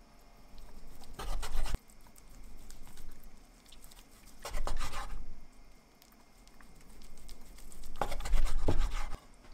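Kitchen knife slicing boiled chicken thigh meat on a wooden cutting board: the blade scrapes through the meat and against the board in three spells of about a second each.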